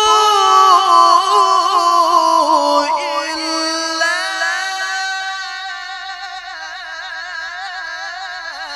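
A male qari chanting the Quran in melodic tilawah style, one amplified voice drawing out long melismatic notes on 'ta'budu illa' with quick ornamental trills. It steps to new pitches about three and four seconds in and grows softer in the second half.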